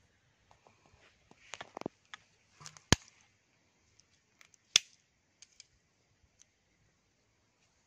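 A bamboo stick poking and knocking at grass and ground: light rustling, then two sharp clicks nearly two seconds apart, with a few faint ticks after.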